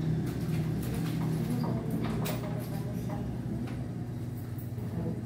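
Scattered light taps and clicks of hands and tools working on aluminum cabinet frames, about one or two a second, over a steady low hum.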